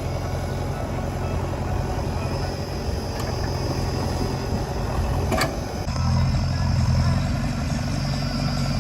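Heavy diesel machinery engine running steadily, with a sharp clank about five seconds in; the engine note changes abruptly shortly after.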